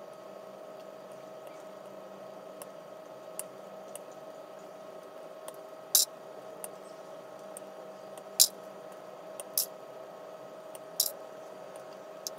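Side cutters snipping plastic model kit parts off the sprue: several sharp snips, most in the second half, over a steady low electrical hum.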